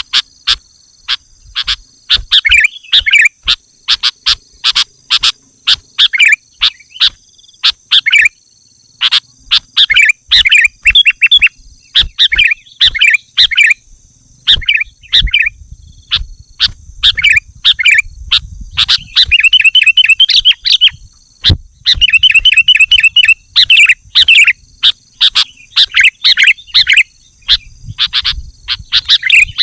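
Sooty-headed bulbul (kutilang) singing loudly in rapid runs of short chirps and trills, mixed with many sharp clicks, over a steady high-pitched buzz.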